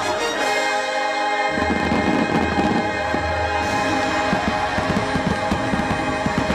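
Fireworks bursting and crackling in rapid succession over the show's music, which holds sustained chords; from about a second and a half in, the bangs grow denser over a deep rumble.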